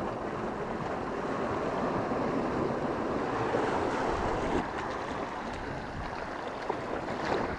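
Small sea waves washing over a low rocky shelf: a steady rush of surf that swells a little in the middle and eases again.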